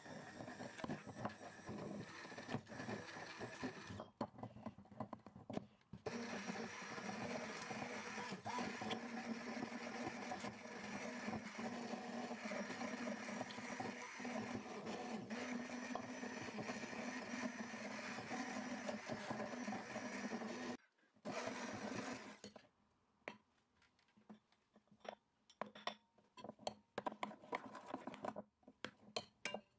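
Immersion stick blender running in cocoa batter in a glass bowl: a steady motor sound that pauses briefly about four seconds in, starts again, and stops about twenty seconds in. After it, a spoon scrapes and clicks against the glass bowl as the batter is stirred by hand.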